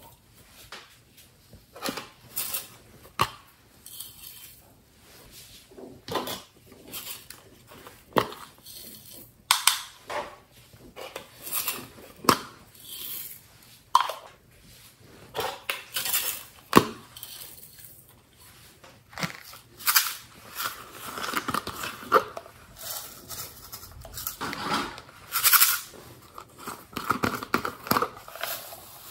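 Glitter and sequins shaken from plastic tubs into a glass baking dish, with irregular clicks and taps of the plastic containers being handled and opened. Rustling grows in the second half.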